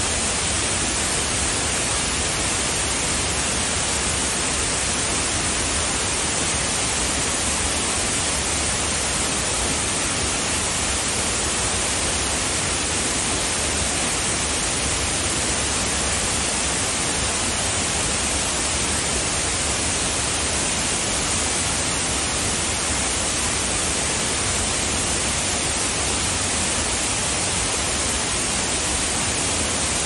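Waterfall of many thin streams pouring down a rock face onto boulders: a steady, dense rush of falling water.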